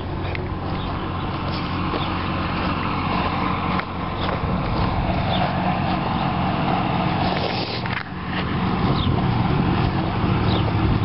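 A motor vehicle engine running steadily, a low even hum, with a few short bird chirps over it.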